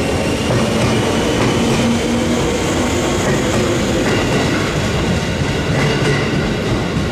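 Electric train moving slowly on the station tracks: a steady rumble of wheels on rail, with faint pitched tones that slowly rise and fall.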